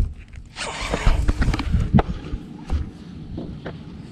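Scattered knocks and thumps on a bass boat's deck, with a short stretch of rustling noise and low thuds about a second in.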